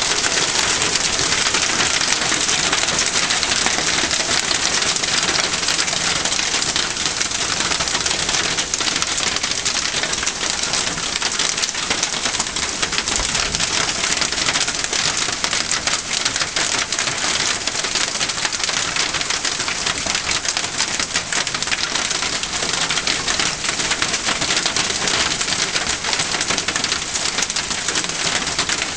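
Marble-sized hail pelting dry fallen leaves and the ground: a dense, steady clatter of countless small ticks.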